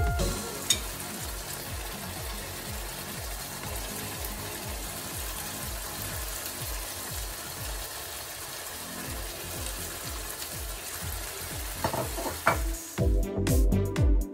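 Minced beef sizzling in coconut milk in a frying pan, stirred with a wooden spoon, as a steady hiss with soft irregular scraping. Music comes back in near the end.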